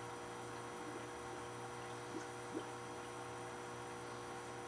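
Steady hum of aquarium equipment with water trickling, and a couple of soft drips, the clearest about two and a half seconds in.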